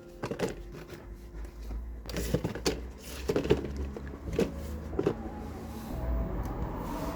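A run of sharp clicks and knocks, thickest in the middle, over a low steady hum.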